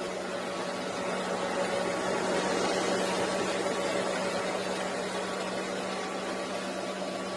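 Dyson DC07 upright vacuum cleaner running steadily: a constant motor hum under a broad rushing hiss of airflow.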